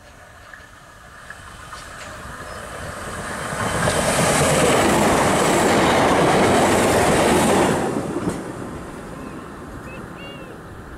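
British Rail Class 313 electric multiple unit passing at speed. The noise builds steadily, is loudest from about four to eight seconds in, then fades away.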